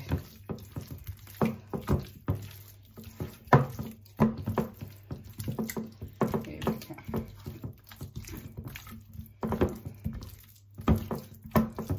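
Hands squishing and slapping oiled, spice-marinated chicken pieces around in a glass baking dish: an irregular run of wet squelches and smacks, with a faint steady low hum underneath.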